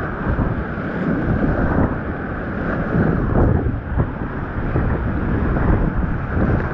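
Whitewater rapids of a river in high flow, rushing and churning loudly around a kayak, heard close up and muffled, with water buffeting the microphone.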